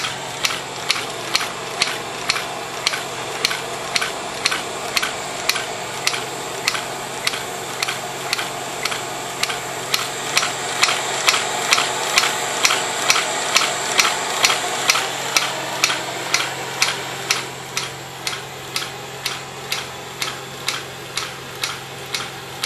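Homemade beta Stirling engine running under blowtorch heat, its crank and linkage giving a steady mechanical clack about three times a second, one clack at the same point in each revolution. Under it runs the steady hiss of the propane torch.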